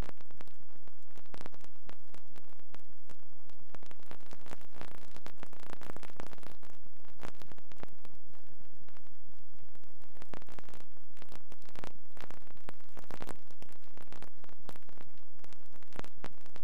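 Steady hiss of noise with irregular crackles throughout, and no speech.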